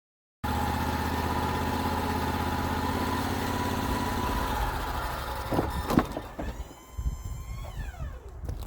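Wood-Mizer portable band sawmill running steadily, then a couple of sharp clicks and a falling whine as the machine winds down.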